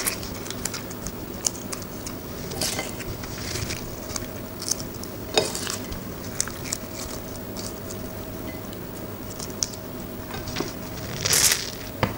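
Dry bay leaves crackling and rustling as they are handled and laid over a fish on aluminium foil: scattered light clicks and crinkles, with a louder rustle near the end.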